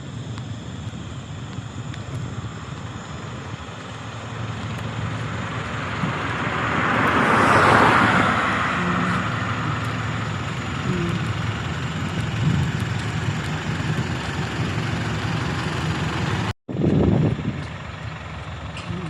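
Heavy diesel trucks running at a roadworks site, a steady low engine rumble with a broad rushing swell that builds and peaks about eight seconds in as one comes close. Near the end the sound cuts out for an instant and returns with a short loud burst.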